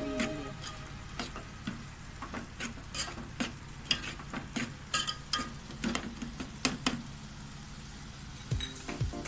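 A steel spoon stirring in a stainless-steel pot of chicken biryani masala, scraping and clinking irregularly against the pot, over a steady sizzle from the cooking masala.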